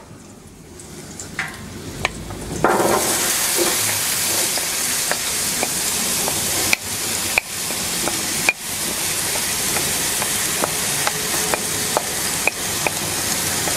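Chopped onions and red peppers tipped into hot oil in a stainless roasting pan, frying with a steady sizzle that jumps loud about three seconds in as the vegetables hit the oil. A few sharp knocks land partway through.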